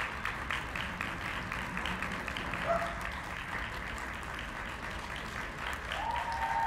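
Small audience applauding, a steady patter of many hands clapping.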